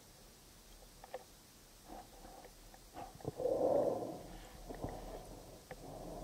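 Muffled underwater sound from the spearfisher's camera: scattered faint clicks and knocks as he swims and handles the spear gun, with one louder muffled whoosh lasting about a second near the middle.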